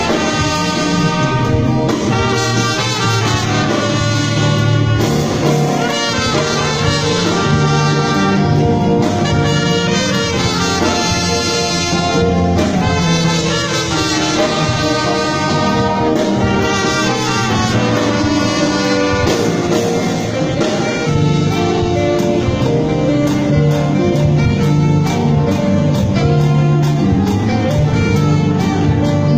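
Orchestra playing a gospel hymn instrumentally, with brass carrying the melody in long held notes over a steady bass line.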